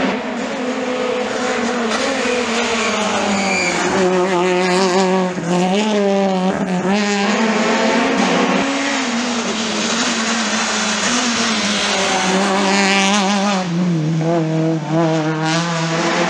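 Rally car engines driven hard on a stage, the revs repeatedly climbing and dropping back through gear changes and lifts for corners.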